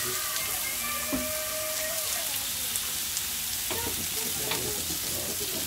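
Meat sizzling on a gas barbecue's flat-top hotplate: a steady frying hiss with scattered small pops of spitting fat.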